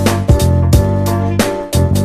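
Instrumental outro music with a heavy bass line and sharp drum hits.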